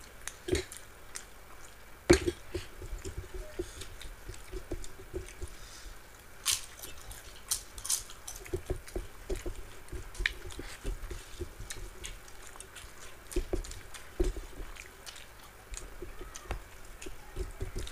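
Hands mixing rice with vegetable curries and fried vegetables on steel plates, and chewing, close to the mic: wet squelching, smacks and clicks, with a louder knock about two seconds in.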